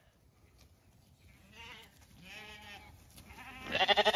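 Zwartbles lambs bleating: two fainter bleats, then a loud, wavering bleat near the end.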